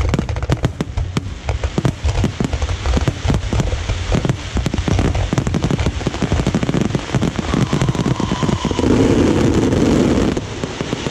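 Fireworks going off in a dense, rapid barrage of bangs and crackles. About nine seconds in, a louder steady rushing noise takes over and cuts off suddenly about a second and a half later.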